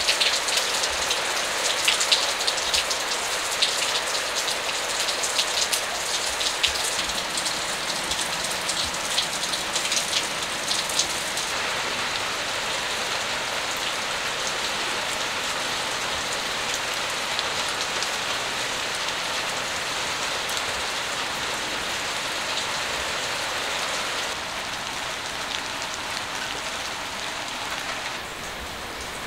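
Steady rain falling, with sharp, close drop hits for roughly the first eleven seconds, then a smoother, even hiss that gets a little quieter near the end.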